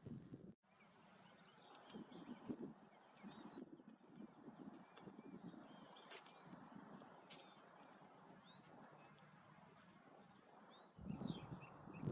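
Faint outdoor ambience: short, soft bird chirps over a steady high-pitched whine and a low hiss.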